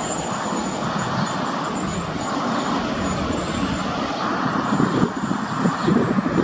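Freight train wagons rolling past: a steady rumble and rattle of wheels on the rails, with a faint high-pitched whine on top.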